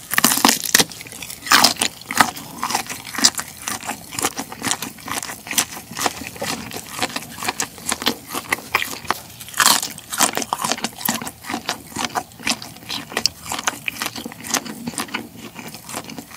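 Close-up eating sounds of a black tiger shrimp: biting and chewing the shrimp meat, with steady small crackles as the shell is pulled apart by gloved fingers, and a few louder sharp snaps along the way.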